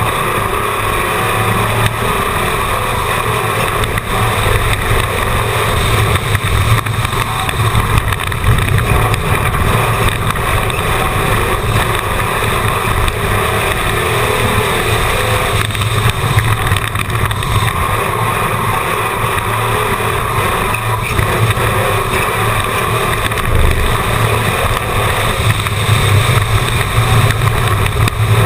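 Stock race car's engine heard on board at racing speed, running hard and steady through the laps, with road and wind noise.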